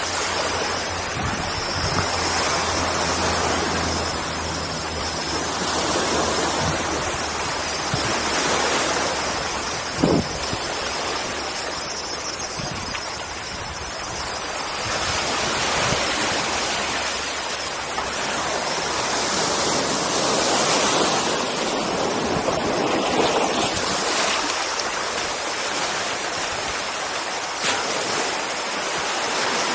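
Small sea waves washing and lapping over a rocky shore, a continuous rush that swells and eases every few seconds. A single short knock about ten seconds in.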